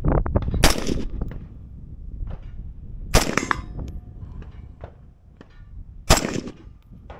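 Three shots from an AR-style 5.56 rifle, spaced about three seconds apart, at steel targets, each with a short echo. A few quick clicks come just before the first shot, and a faint ring of struck steel follows the second.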